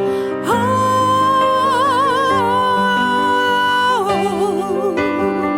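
A woman's voice, thickened into stacked harmonies by a vocal harmonizer, holds one long high note with vibrato, then falls into a lower run of wavering notes about four seconds in, over sustained piano.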